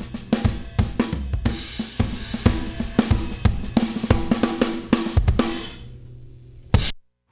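Band recording played back with the drums to the fore (kick, snare, cymbals and hi-hat over bass and guitar), the drum bus squeezed hard through a 5020 stereo FET limiter for heavy compression. The playing thins out after about five seconds and the playback stops suddenly near the end.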